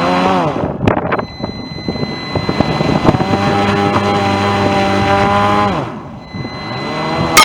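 Motor of a small remote-controlled aquatic rover running and changing speed: its pitch holds level through the middle, then falls and dies down about six seconds in before picking up again at the end.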